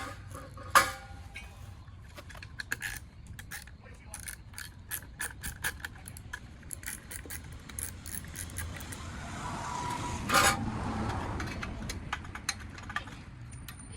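Small plastic tabs and hardware clicking and clattering as they are handled and fitted onto a new lower radiator support, with a sharper clack about ten seconds in.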